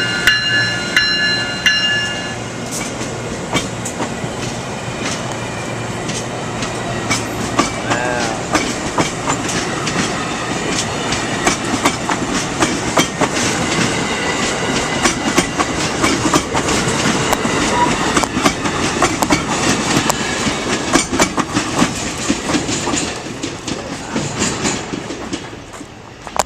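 Amtrak Keystone train's horn sounding a run of short blasts, then the train passing, its wheels clicking over the rail joints in a steady clatter that fades near the end.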